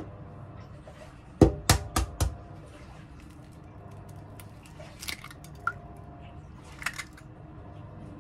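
An egg cracked into a glass baking dish: four sharp knocks of the shell on a hard edge about one and a half seconds in, then a few softer clicks as it is opened.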